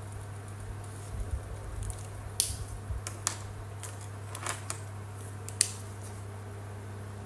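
Plastic paint markers being handled on a tabletop, one put down and another picked up: a few sharp plastic clicks, the loudest about two and a half and five and a half seconds in, with light thumps before them, over a steady low hum.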